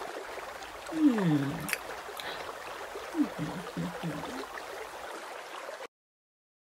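A person's wordless voice: one drawn-out sound falling in pitch about a second in, then a few short falling sounds around three seconds in, over a faint steady hiss, cut off abruptly to silence near the end.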